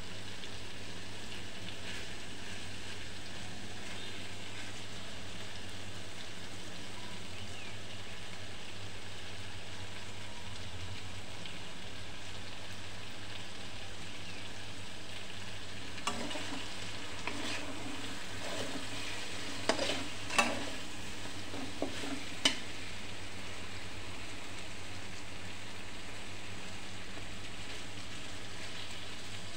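Eggplant pieces sizzling steadily as they fry in oil in a karahi, with a metal spatula scraping and knocking against the pan several times around the middle.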